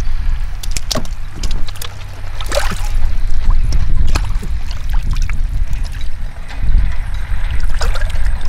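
Hands splashing and groping through shallow, watery mud, with repeated short squelches, slaps and gurgles as fish are felt for and pulled out, over a steady low rumble.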